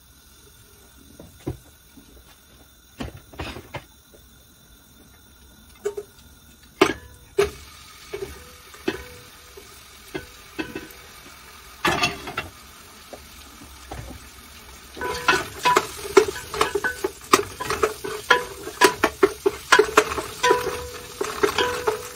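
A wooden spoon stirring in an aluminium cooking pot: a few separate knocks at first, then from about two-thirds of the way through a fast, irregular run of scrapes and knocks, the pot ringing under them.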